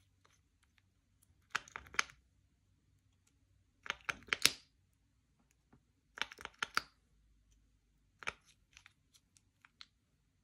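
Slime being pressed and worked by hand, giving four short bursts of crackly clicks and pops roughly every two seconds, then a few single clicks near the end.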